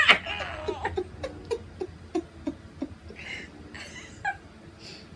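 Two women laughing: a loud, high, wavering laugh at the start breaks into a run of short rhythmic laugh pulses, about three a second, that fade into quiet breathy giggles after about three seconds.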